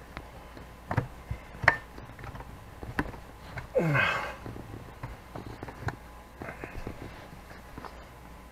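Scattered light clicks and taps of a screwdriver and fingers fumbling at a screw on a couch's metal frame. Just before four seconds in there is a short sound that slides down in pitch.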